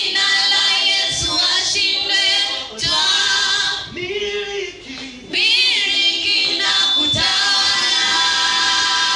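A choir of voices singing together through the hall's loudspeakers, with a few high cries rising and falling over the singing. The singing drops quieter about four seconds in and comes back in full about a second later.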